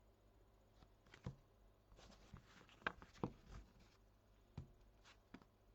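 Faint handling of trading cards: a few soft taps and clicks with light rustling as cards are sorted by hand.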